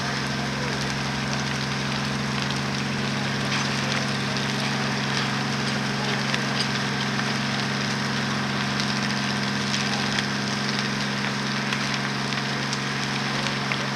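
Large wooden building burning: a steady rushing noise with many scattered crackles and snaps, over a steady low hum.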